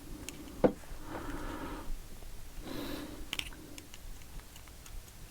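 Light clicks and taps of small lock pins being handled and set into a pin-tumbler lock cylinder, with one sharper click about two-thirds of a second in.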